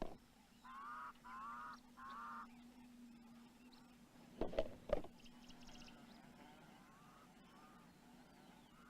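A bird gives three short wavering honking calls, then two sharp knocks about half a second apart: a stone thrown by an Egyptian vulture striking an ostrich egg's thick shell.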